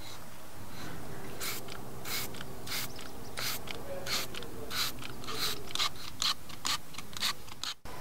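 Hand trigger spray bottle being squeezed repeatedly, a quick series of short hissing sprays about one every two-thirds of a second.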